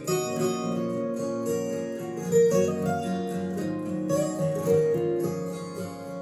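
Recorded ballad music in an instrumental passage with no singing: acoustic guitar and piano notes, played back through Yamaha NS-1000MM loudspeakers.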